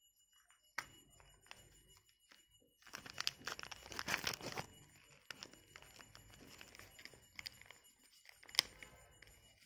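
Thin plastic packaging bags being handled and opened by hand, crinkling and tearing. The crinkle is loudest in a dense stretch about three to four and a half seconds in, with sharp clicks about a second in and near the end.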